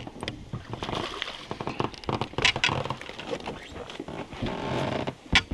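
Irregular rustling, tapping and knocking as a freshly landed small pike is handled in an inflatable boat.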